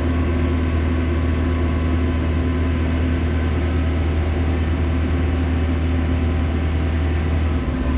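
JCB 541-70 telehandler's diesel engine running steadily, heard from inside the cab, with a steady even hum and no change in speed.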